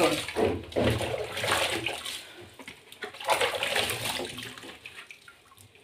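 Water splashing and sloshing as dishes are washed by hand in a kitchen sink, in irregular bursts that fade out near the end.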